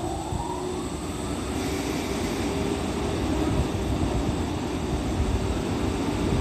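EF81 electric locomotive standing at the platform with its equipment running: a steady hum over a low rumble, with a tone rising in pitch in the first second and a half.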